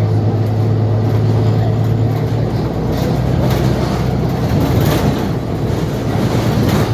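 Cabin sound of a 2021 New Flyer XDE40 Xcelsior diesel-electric hybrid city bus: a steady low drone from the drivetrain with faint rattles. The drone eases slightly about halfway through.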